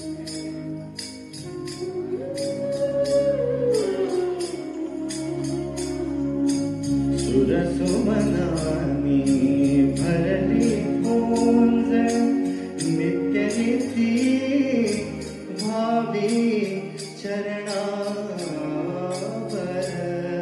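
Live Indian vocal music: a male singer sings an ornamented, gliding melody into a microphone over held keyboard notes, with hand drums and a steady, fast jingling rhythm from small cymbals or jingles.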